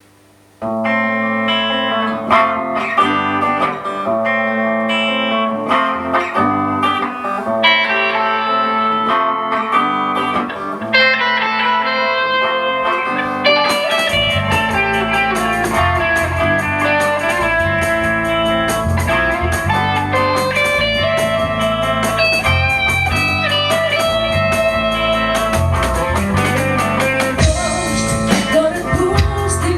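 Instrumental intro of a rock cover: a guitar playing alone at first, then about fourteen seconds in the full band enters with drums and bass under the guitar.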